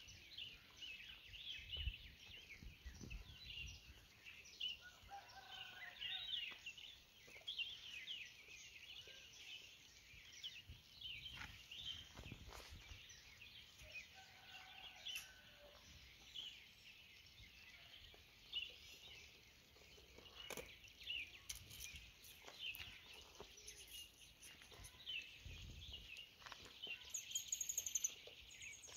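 Faint birds chirping and calling over a quiet outdoor background, with scattered low thumps and rustles.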